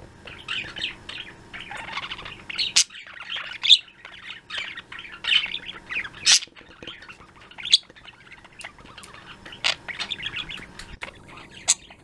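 Pet budgerigars chattering: a busy run of warbling chirps and trills, broken every second or two by short sharp clicks.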